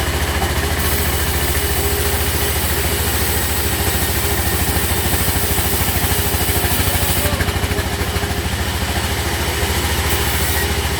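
Engine running steadily with a low, even throb. A high hiss rises over it from about a second in and falls back near seven seconds.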